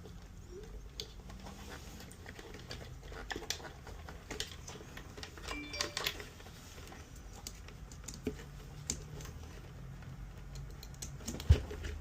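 Scattered small clicks and taps of hands handling the parts of an opened espresso machine, with one sharper knock about eleven and a half seconds in, over a steady low hum.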